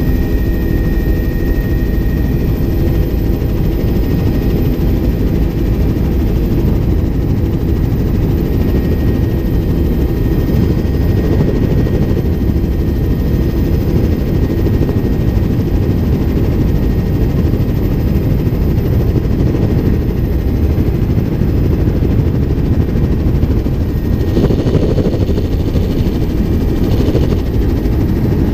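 Helicopter main rotor and engine heard from on board, a loud, steady rumble as it climbs away low over the fields after take-off.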